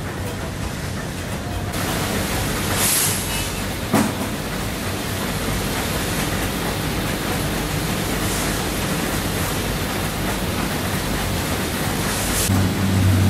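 Steady, even hiss-like din of factory machinery, from a vibratory bowl feeder shaking small black plastic LEGO minifigure parts round its track. There is a short sharp click about four seconds in, and a low hum comes up near the end.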